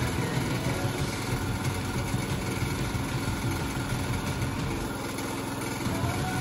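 A small motor running steadily, its note dipping briefly about five seconds in.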